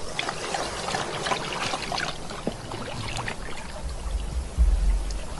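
Water splashing and sloshing in a plastic paddling pool as a young honey badger plunges and paddles about in it, with a louder low bump near the end.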